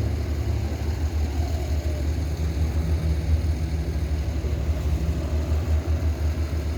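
An engine running steadily at low speed, a deep rumble with a faint steady hum above it.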